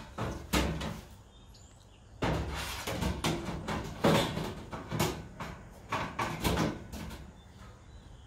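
Metal baffle grease filter being worked into the channel of a stainless steel exhaust hood, scraping along the metal with a series of sharp clanks and knocks. It is being forced against bolts that are in the way and does not seat.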